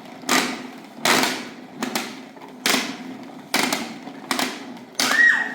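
A series of about seven sharp knocks or strikes, roughly one every three-quarters of a second, each fading quickly.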